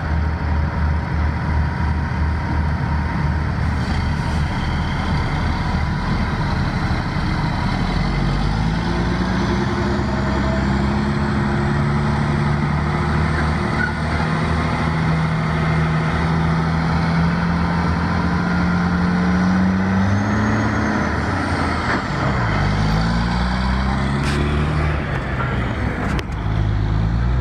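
Diesel engine of a loaded tractor-trailer log truck pulling away, its pitch climbing slowly as it accelerates, then dropping and climbing again twice with gear shifts near the end.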